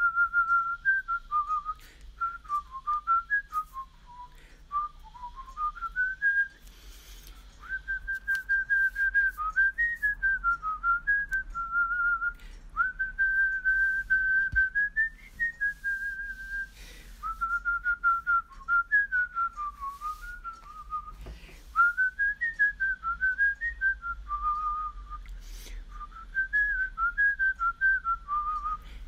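A whistled melody: a single clear tune of short notes hopping up and down, with brief pauses between phrases.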